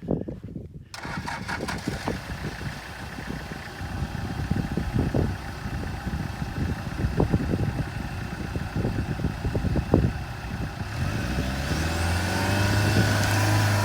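UAZ off-road vehicle's engine running while driving through mud, with irregular thumps and knocks throughout. About eleven seconds in, a steadier, louder engine note takes over.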